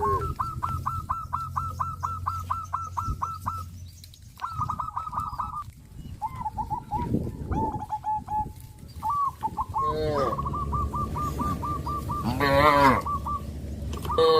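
A bird calling in fast trains of short repeated chirps, about eight a second, in several bursts. Cattle moo twice near the end, over a low steady hum.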